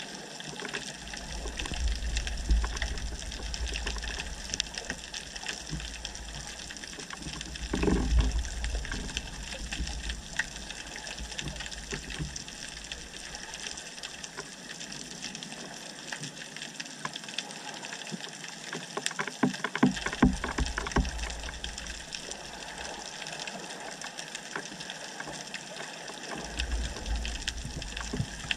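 Underwater ambience: a steady hiss with scattered crackling clicks, which grow thicker about two-thirds of the way through. Low rumbling surges of moving water come and go several times.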